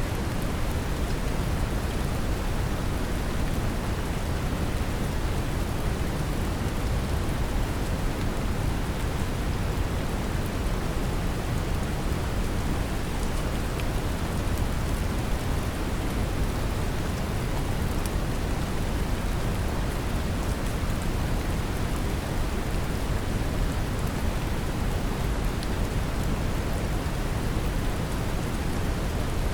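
Brown noise mixed with gentle rain: a steady, deep, even hiss that is heaviest in the low end, with faint raindrop patter on top.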